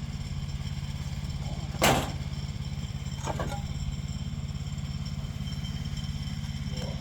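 An engine running steadily with a fast, even low pulse. A sharp knock sounds about two seconds in, and a fainter one a second or so later.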